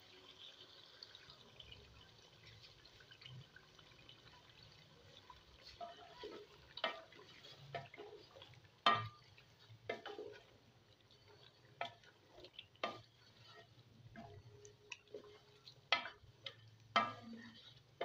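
Wooden spatula stirring chicken and yogurt gravy in a granite-coated cooking pot: irregular knocks and scrapes against the pot, with wet squelches of the thick gravy, starting about six seconds in. Before that there is only a faint hiss.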